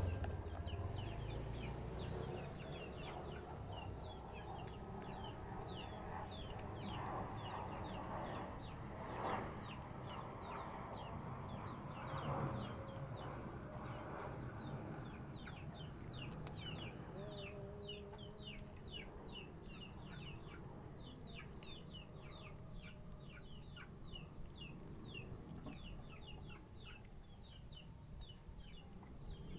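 Birds chirping steadily: short, high, falling peeps repeated several times a second, coming thicker in the second half, over a low background rumble. Two brief louder bumps stand out, about a third of the way in and again a little later.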